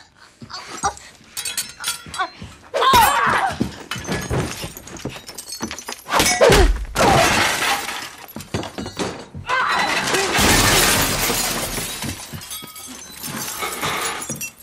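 A hand-to-hand fight between two women: grunts and strained cries, bodies and furniture crashing, and glass shattering. There is a sudden loud crash about six seconds in, and a longer spell of breaking and shattering from about ten to twelve seconds in.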